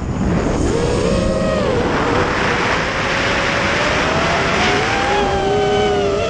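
FPV quadcopter's electric motors whining, with wind rushing past the onboard camera as it dives. The whine's pitch wanders up and down with the throttle and climbs sharply right at the end as the quad pulls out of the dive.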